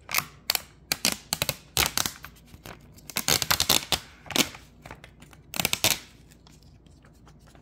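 Protective plastic film sheet being peeled off a new smartphone's screen, crinkling and rustling in a run of short, sharp bursts that stop about six seconds in.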